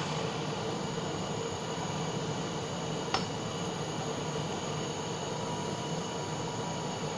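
Butane blowtorch flame running steadily with a hiss, heating molten silver solder in a crucible. A single light click about three seconds in.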